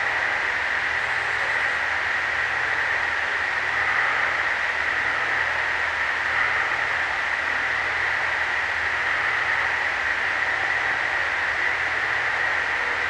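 Steady night-time swamp chorus: a continuous shrill hum, centred high, with a faint low rumble beneath it. No calls or howls stand out.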